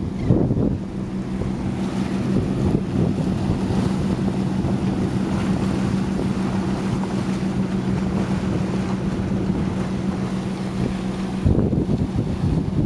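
Wind buffeting the microphone over surf washing against the boulders of a rock jetty. Under it a steady low motor hum runs from about a second in until about a second before the end, where a heavier gust of wind covers it.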